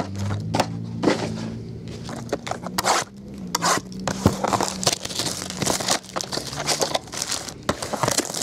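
Foil wrappers of trading card packs and boxes crinkling and rustling in irregular bursts as hands handle and open them.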